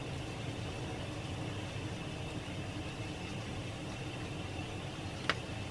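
Steady low hum of a running ceiling fan, with a faint, even high whine over it. A single sharp click near the end.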